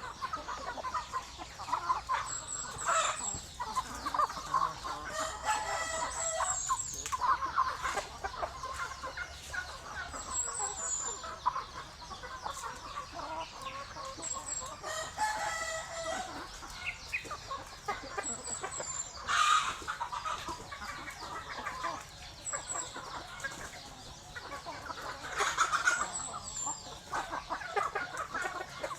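A flock of chickens clucking continuously, with roosters crowing a few times. There are two brief, louder sudden sounds, one a little past the middle and one near the end.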